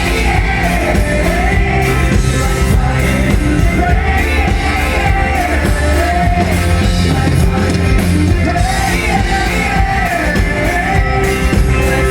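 Live pop-rock band music with a steady drum beat and bass, and a wavering vocal melody without clear words over it.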